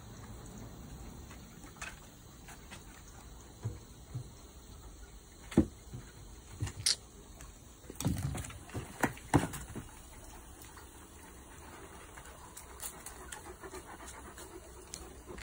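Dogs panting while they play, with scattered sharp knocks and scuffs clustered around the middle.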